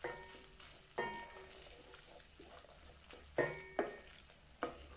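Wooden spoon stirring pepper paste frying in olive oil in a stainless steel pot, knocking against the pot several times with short metallic rings over a faint sizzle.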